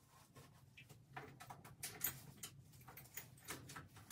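Faint rustling of feathers with irregular soft clicks as a golden eagle's injured wing is handled and its feathers parted for wound cleaning, over a faint low hum.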